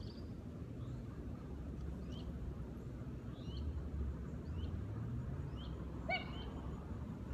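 A bird chirping repeatedly, short falling chirps every half second or so, over a steady low rumble. About six seconds in comes a brief, louder call with several overtones.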